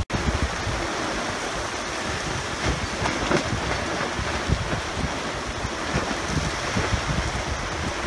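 Steady hiss of squall wind and sea around a sailboat under spinnaker, with gusts buffeting the microphone.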